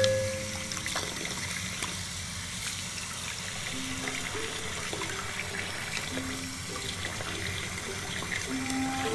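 Tap water running in a steady stream from a bathroom faucet into a sink of soapy water, splashing over a plush toy held under it. A few soft background music notes sound faintly.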